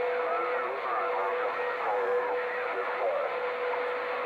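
CB radio receiver on sideband giving out steady band static with a steady whistle from a carrier, and faint garbled, off-tune voices of distant stations calling over one another: a small pile-up on the frequency.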